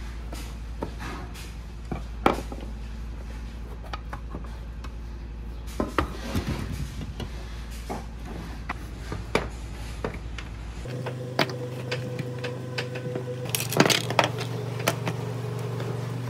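Small hard parts being handled and set down: scattered clicks, clinks and light knocks over a steady low hum. The hum shifts to a higher pitch about two-thirds of the way through.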